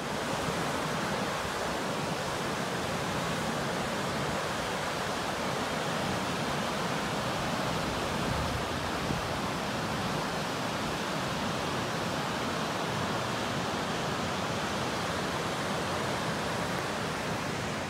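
Fast-flowing mountain river rushing over rocks and rapids, a steady unbroken whitewater rush.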